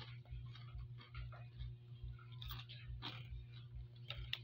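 Crunchy Mang Juan Vegetable Chicharron snack being chewed: irregular crisp crackles over a slow, even chewing rhythm. A steady low hum runs underneath.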